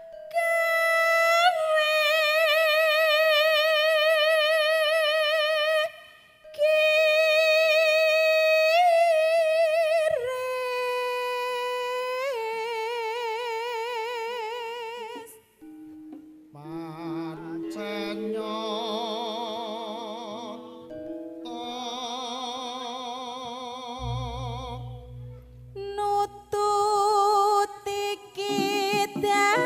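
Javanese gamelan gending in slow style: long held melodic notes that waver in pitch, several lines sounding together in the middle, and quick kendang drum strokes coming in near the end.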